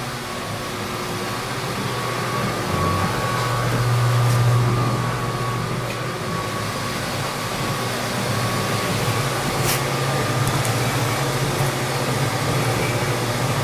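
Metal lathe running at slow speed, turning a fiberglass stern tube during a light first cut, with a steady low motor hum that swells briefly about four seconds in. There is a faint click near the end.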